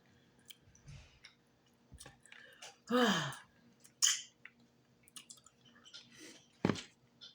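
Close-miked eating mouth sounds: scattered soft chewing noises and lip smacks. About three seconds in there is a short hummed 'mm' that falls in pitch.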